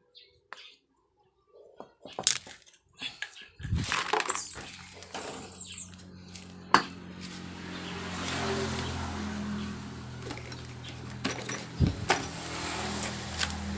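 Sharp metallic clicks and knocks of parts and tools being handled. About four seconds in, a motor starts and runs with a steady low hum, with a few more knocks over it.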